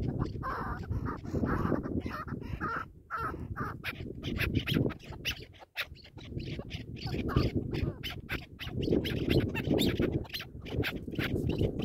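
Chukar partridge calling in a rapid run of short clucks, over a steady low rumble.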